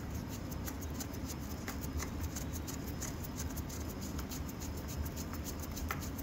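Small screwdriver turning a tiny screw into a screw-together flow cell: a run of faint, quick ticks and scratches several times a second over a steady low hum. The screw is still running in freely, before it meets resistance.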